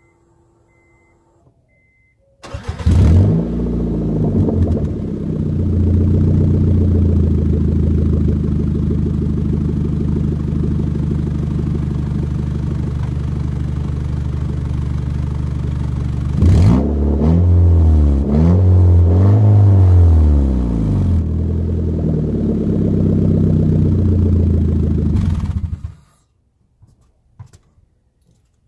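A 7th-gen Honda Civic's four-cylinder engine starting up through a DC Sports cat-back exhaust, idling steadily, then revved in a few quick blips and shut off. The stock header has massive exhaust leaks, so this is the car's exhaust note with the leaks present.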